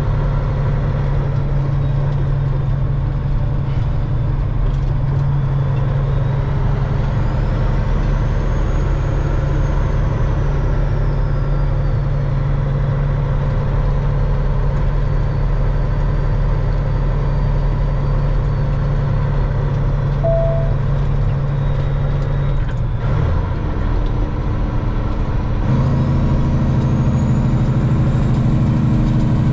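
Peterbilt 379's Caterpillar diesel engine drones steadily inside the cab while the truck drives at road speed. About 23 seconds in the engine note dips and changes, as in a gear change, then comes back louder from about 26 seconds. A faint high whine rises and falls above it.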